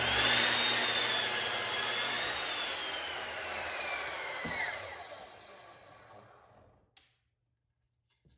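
Ryobi sliding miter saw running through a cut in a wooden brace piece, its motor whine steady for about two seconds, then falling slowly as the trigger is released and the blade coasts to a stop over several seconds.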